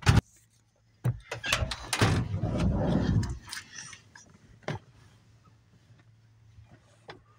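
A sharp click of a car door latch opening, then about two seconds of rustling and bumping as someone climbs out past the door, then a few faint knocks.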